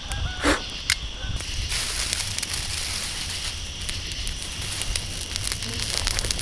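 Small campfire of split wood and dry leafy twigs catching and crackling, a dense hiss full of small pops from about two seconds in. A brief vocal sound about half a second in.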